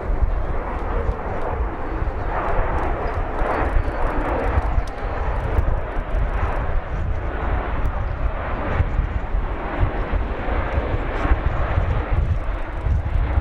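Jet engine noise from a Boeing 737-800's CFM56 turbofans as the airliner rolls along the runway: a steady roar over an uneven low rumble.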